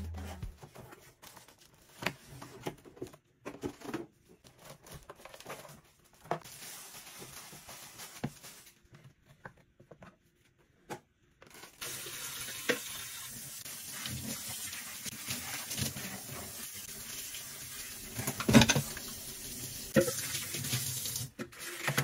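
Water running steadily, as from a tap, for about ten seconds from around halfway in, stopping shortly before the end. Scattered clicks and knocks come before and through it.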